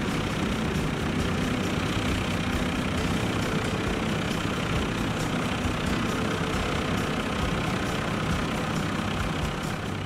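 Vintage tractor's engine running steadily under load as it pulls a mounted plough through stubble.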